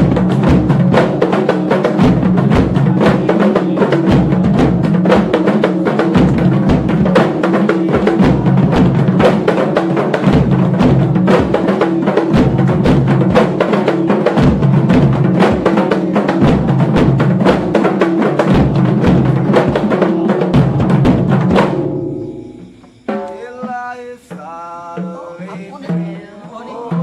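A kompang ensemble, goatskin Malay frame drums struck by hand, playing a fast interlocking rhythm with many strikes a second. The drumming stops about 22 seconds in, and near the end a man's voice begins chanting.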